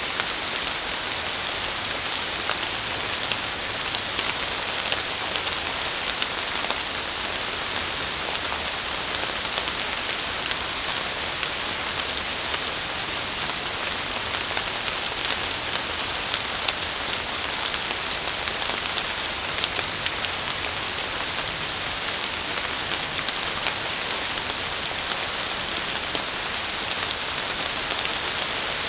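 Steady rain falling on forest foliage: an even hiss with many separate drops heard as small ticks throughout.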